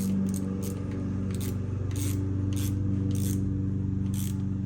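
Hand ratchet tightening the oil pump bolts: short rasping bursts of clicks, about two a second, as the handle is swung back and forth, over a steady low hum.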